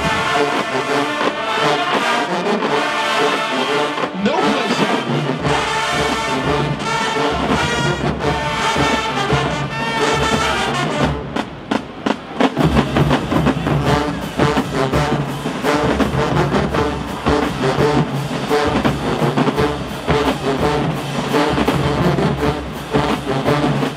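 College marching band playing, led by its brass section. The horns hold long sustained chords for about the first half. About halfway through, the drums come in heavily under a more rhythmic brass passage.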